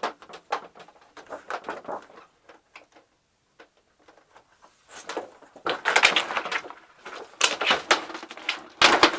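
Scattered light clicks and taps, then after a brief lull about three and a half seconds of loud crackling and rustling: thin plastic sheets from the inside of a flat-screen TV being pulled loose and handled.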